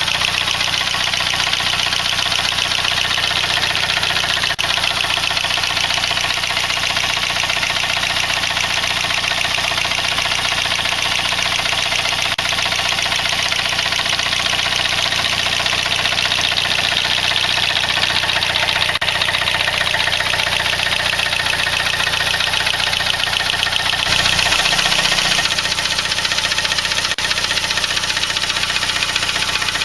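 Saab 9-3's B205E 2.0-litre turbocharged four-cylinder engine running steadily, with a fast, even ticking texture; its sound shifts briefly about 24 seconds in.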